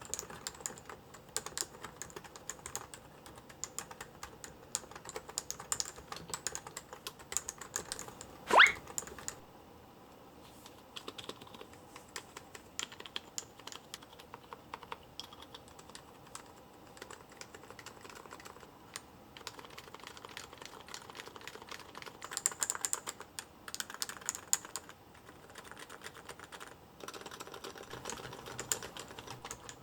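Typing on a Topre electro-capacitive keyboard: a run of soft, uneven key strokes that thins out in the middle and picks up again later. There is one louder knock about nine seconds in.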